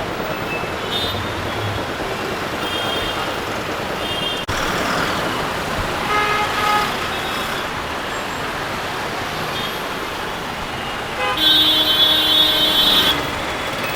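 Steady road-traffic noise with vehicle horns tooting: several short toots, and one longer horn blast of about two seconds near the end.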